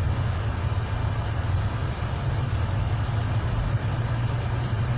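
Steady road and engine noise inside a moving car's cabin: a low, even rumble with tyre hiss.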